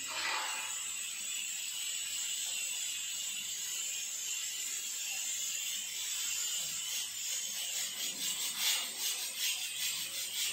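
A steady hiss, joined about seven seconds in by fast, even scraping strokes, several a second, like something being scrubbed or scraped by hand.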